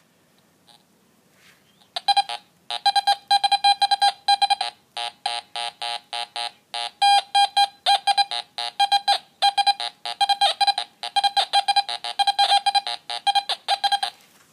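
Teknetics G2+ metal detector sounding its target tone: a fast string of short, high beeps, several a second, as the search coil sweeps back and forth over coins laid close together. The beeps start about two seconds in and stop just before the end.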